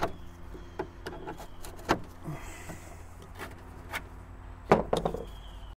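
Clicks and knocks of metal parts and tools being handled while a lawnmower's drive components are taken apart by hand, over a low steady hum. There is a sharp knock about two seconds in and a quick cluster of louder clacks near the end.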